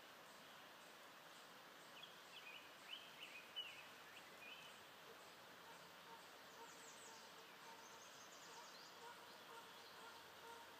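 Near silence: faint outdoor background with a few faint short bird chirps about two to four seconds in, and a few more around seven seconds.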